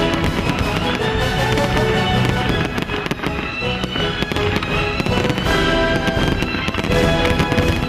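Fireworks going off in a fast run of sharp reports and crackles, over music with held notes.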